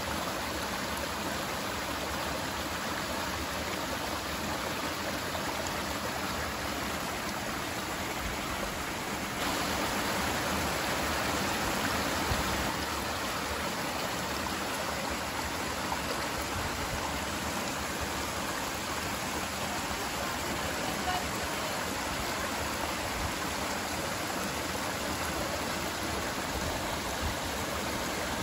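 Small waterfall spilling into a rocky stream pool: a steady rush of running water, a little louder for a few seconds about a third of the way in.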